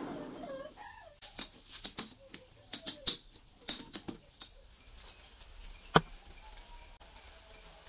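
Metal lathe's spinning chuck running down and fading out, then a few brief squeaks and a scatter of light metallic clicks and knocks as the part is handled at the chuck. About six seconds in comes one sharp click as a small machined steel sleeve is set down on a tabletop.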